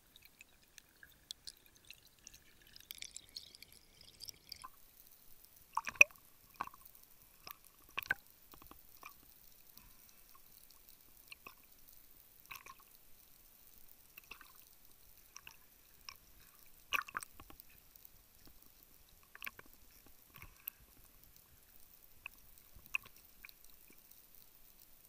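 Irregular clicks and knocks with light water sloshing, picked up by an underwater camera, from a freediver handling a speargun and a speared dentex on the line. A few sharper knocks stand out, about six, eight and seventeen seconds in.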